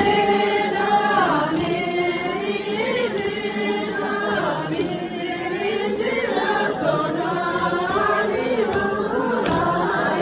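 A group of voices singing together in long held notes that slide up and down in pitch.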